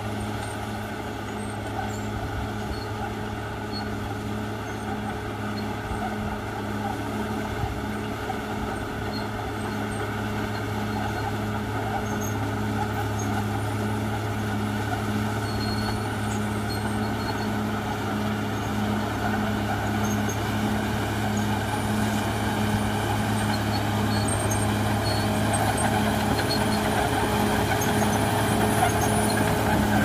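Diesel engine of a Caterpillar D6R XL crawler bulldozer running steadily under load as it pushes a blade-load of earth down a slope, growing slowly louder as the machine comes closer.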